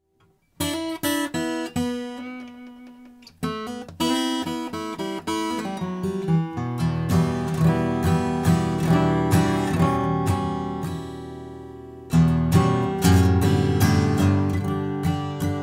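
Gibson J-45 Standard acoustic guitar (slope-shoulder dreadnought, Sitka spruce top, solid mahogany back and sides) played solo. It opens with picked notes and chords, then moves to strummed chords. A chord rings out and fades around eleven seconds in, and strumming starts again loudly about a second later.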